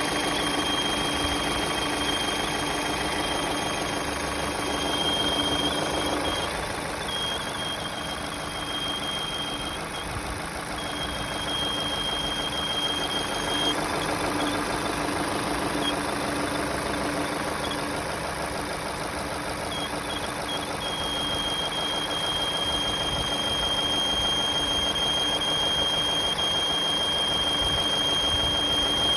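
Opel A16XER 1.6-litre four-cylinder petrol engine idling at operating temperature, with a thin, high, steady whistle that the owner puts down to the drive-belt tensioner pulley. The whistle breaks up and drops out repeatedly through the middle, then holds steady again in the last third.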